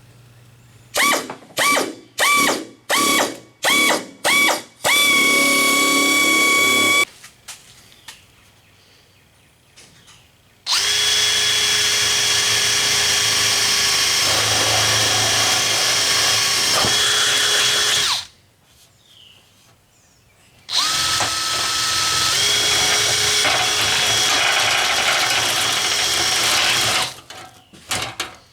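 A handheld power tool working scrap sheet metal for a fan shroud. It is triggered in about five quick bursts, each spinning up in pitch, then run in three long steady stretches with short pauses between.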